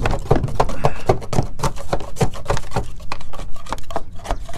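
Hand scraper scraping and picking at old, dried-up sealant along a metal roof seam: a quick, irregular run of short scrapes and knocks on the metal, several a second.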